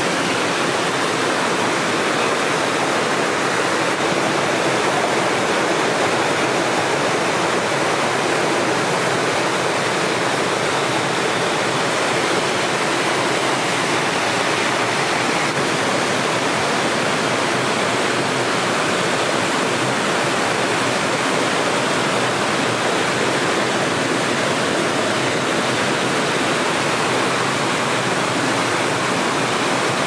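Tall waterfall falling down a rock face, a steady, unbroken rush of water.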